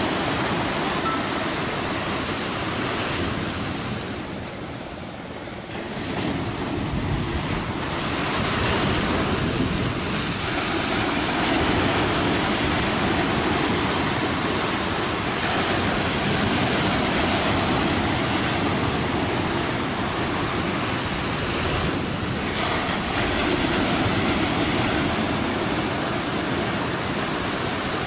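Sea waves washing against a rocky shore, a steady rushing hiss that swells and eases slowly and drops back briefly about five seconds in. Wind rumbles on the microphone.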